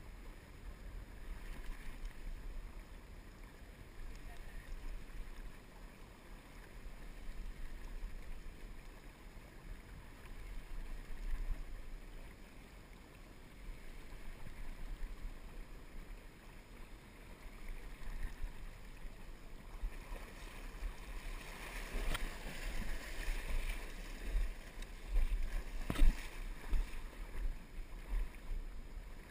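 River water rushing and lapping around a wading angler, heard muffled and rumbling through a GoPro's housing while a salmon is played on a bent rod. Two sharp knocks come late on, the second the louder.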